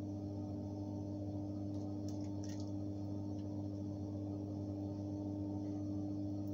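Steady low hum with a few faint, light clicks about two seconds in, as a basting brush dabs barbecue sauce onto wings in a foil-lined pan.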